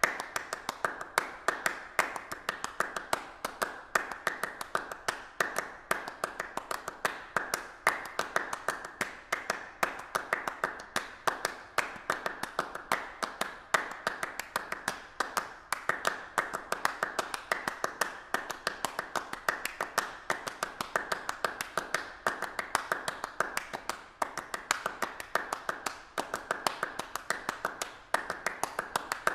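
Continuous irregular tapping clicks, many a second, with a few louder taps standing out, steady throughout.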